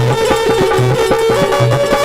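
Instrumental interlude of Rajasthani devotional folk music: a sustained melody line over a steady, repeating drum beat with sharp percussive strikes.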